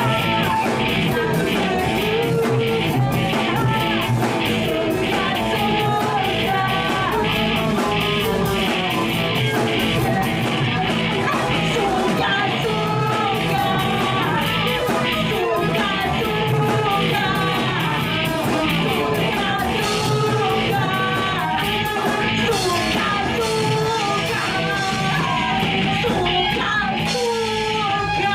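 Live rock band playing a song: electric guitars and a drum kit keep a steady beat while women sing lead vocals into microphones.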